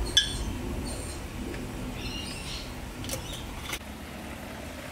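Kitchenware clinking and knocking as a wooden spoon works a pot of simmering sugar syrup on a gas stove: a sharp ringing clink just after the start, then two knocks about three seconds in, over a steady low background noise.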